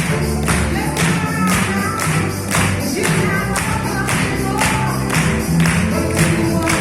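Music with a steady, quick beat and a melody over it.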